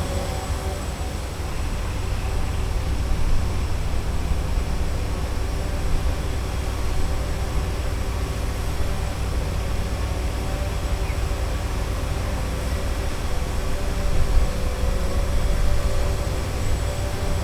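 Steady city street ambience: a continuous low rumble of road traffic with a constant machinery hum over it and no distinct knocks or bangs.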